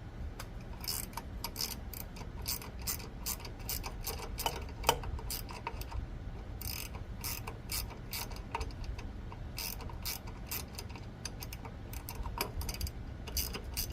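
A 10 mm ratcheting wrench clicking in runs, with short pauses, as it is swung back and forth to loosen the nuts that hold a power rake's main drive pulley on its shaft.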